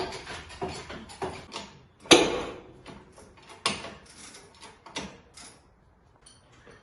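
A run of light knocks and clicks, then three louder clunks about two, three and a half and five seconds in, the first the loudest: parts and tools being handled during work on a car.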